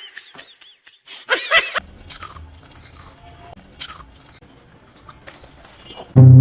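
Potato chips crunching as they are bitten and chewed: a few sharp crunches with quiet gaps between them. Near the end a loud musical sting with a held, brassy chord cuts in.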